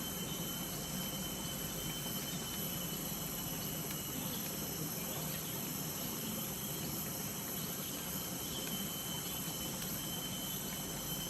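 Steady chorus of tropical forest insects, a constant high-pitched ringing made of several held tones that does not change.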